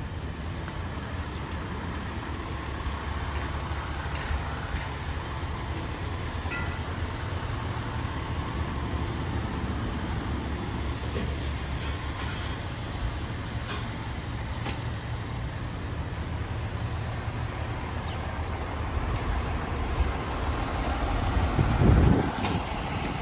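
Heavy fire apparatus diesel engine idling with a steady low rumble, and a brief louder surge near the end.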